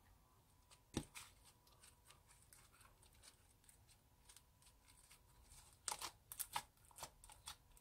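Hands kneading and stretching sticky slime coloured red with makeup and flecked with glitter: soft wet clicks and pops, one loud pop about a second in and a quick run of crackly pops around six seconds.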